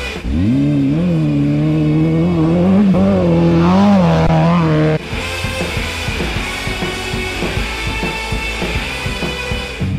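Off-road race vehicle engine revving, its pitch climbing and then rising and falling, cutting off abruptly about halfway through; then music.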